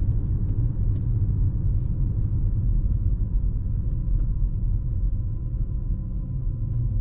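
Steady low road and tyre rumble of a Tesla driving on a snow-covered road.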